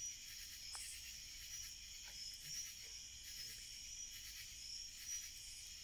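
Steady, high-pitched chorus of night insects, with a rattly call repeating over it. One listener takes that call for a frog, the other for a cricket.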